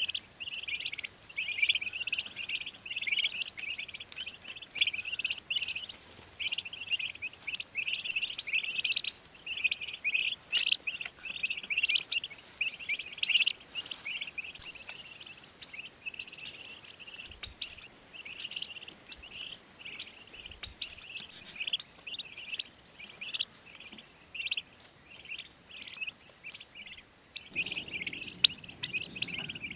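A flock of days-old turkey poults peeping nonstop, many short high calls overlapping several times a second. A low rustling joins in near the end.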